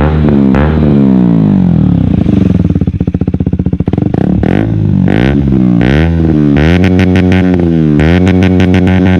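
KTM Duke 125's single-cylinder four-stroke engine through a Radical Racing GP Carbon full exhaust system, revving up and down repeatedly. The revs sink slowly and unevenly in the first few seconds, then climb and drop several times in quick succession.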